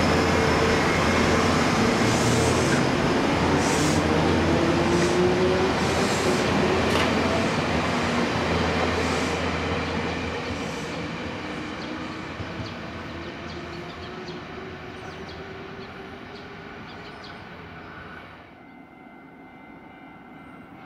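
Nankai Koya Line electric commuter train pulling away, its traction motors whining upward in pitch over the wheel and rail noise, then fading as it moves off.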